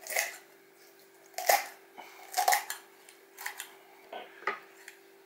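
Poultry shears cutting through a raw chicken's backbone: about five sharp snips, roughly a second apart.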